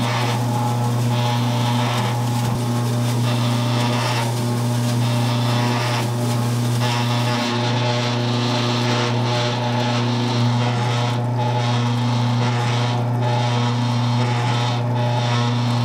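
Electric meat mixer running steadily with a low hum, its paddle churning ground black-pork mince in a stainless-steel trough.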